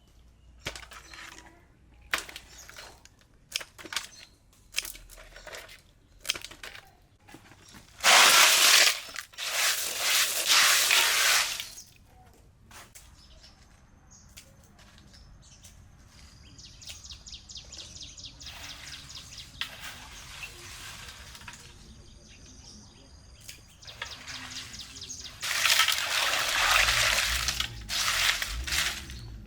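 Water being poured or splashed in two loud spells, one about eight seconds in and one near the end, among scattered clicks and knocks of food preparation.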